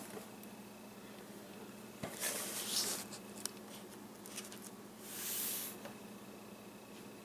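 Cardboard model-kit boxes being handled and swapped. There is a rustling, scraping stretch with a few small clicks about two seconds in, and a smooth sliding swish around five seconds, over a faint steady hum.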